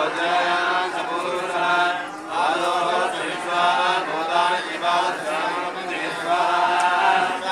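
A group of voices chanting Sanskrit mantras together in a steady recitation for a homa fire offering, with a short breath pause about two seconds in.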